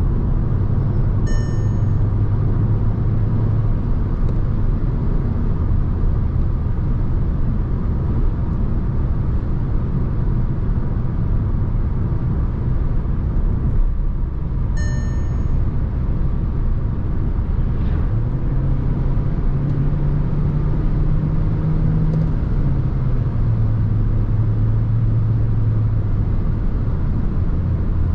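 A 2024 VW T-Roc's 1.5 TSI four-cylinder petrol engine and its tyres running at speed, a steady rumble of road and engine noise; the engine hum rises in pitch a little past halfway, holds, then drops back. A short electronic chime sounds twice, once near the start and once about halfway through.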